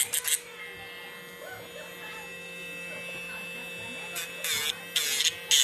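Two-AA battery pet nail grinder running with a steady hum, broken by short grinding bursts as its drum touches a dog's claw: a few in the first half-second and several more near the end.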